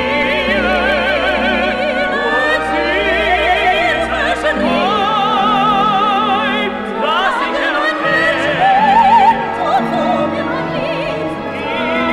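Operetta recording played from a vinyl LP: a singer's melody with wide vibrato over an orchestral accompaniment.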